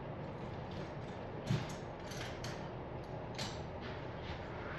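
Hand tools being handled and tried on a plastic washer-fluid reservoir cap: a few light, scattered clicks and clinks, most of them between about one and a half and three and a half seconds in.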